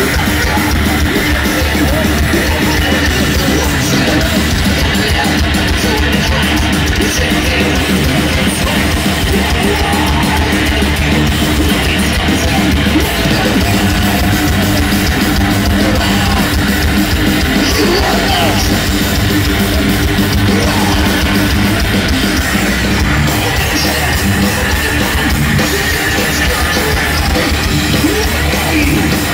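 Thrash metal band playing live with distorted electric guitars and drums, loud and unbroken, recorded on a handheld device from within the crowd.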